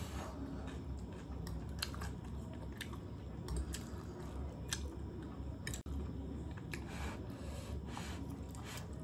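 Chewing and slurping of buff chowmein noodles, with many short sharp clicks scattered throughout from forks on plates and smacking mouths.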